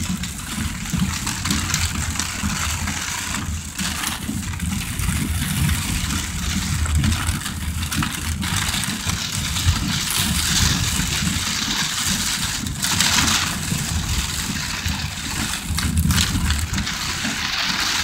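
Heavy rain on the car's roof and windshield, heard from inside the moving car, over a low rumble of engine and tyres on the wet road.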